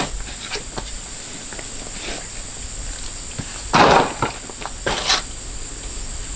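Insects chirring steadily at a high pitch, with a sharp clatter a little under four seconds in and another about a second later.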